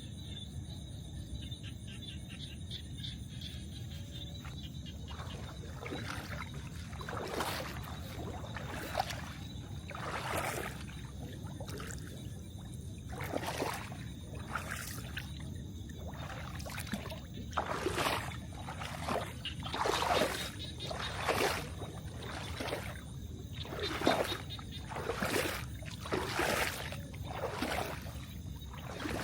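Water splashing and swishing in a series of irregular strokes, roughly one every second or two, starting a few seconds in and getting louder near the end, over a steady low rumble.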